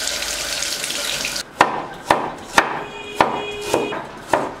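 Tap water running over a piece of ginger as it is rubbed clean, cutting off abruptly about a second and a half in. Then a cleaver slicing ginger on a wooden chopping board: six sharp, evenly spaced knocks, about two a second.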